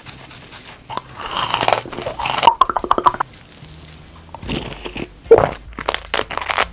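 Close-miked crunching and biting of crunchy sweets in several bursts. A quick run of small sharp cracks comes about two and a half seconds in, and a further series of crunches follows after a short lull.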